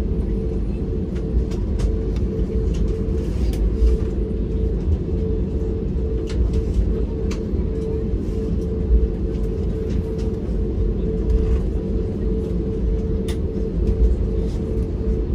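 Airbus A320neo passenger cabin noise: a steady low rumble with a constant hum over it, and a few faint clicks.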